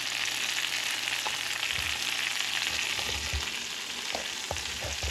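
Butter and garlic paste sizzling steadily in a hot frying pan, with a few soft low thumps in the second half.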